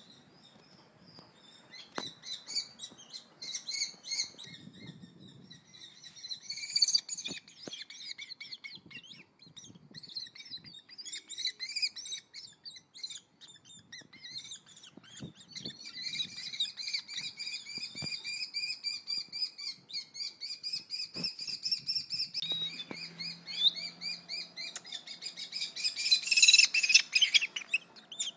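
Kestrels calling: rapid, high chirping notes that run into a longer, nearly continuous series of calls in the second half, with a few sharp knocks.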